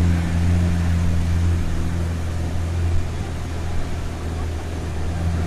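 Pickup truck engine running with a steady low drone as it drives along a rough track, heard from the open cargo bed, with road noise.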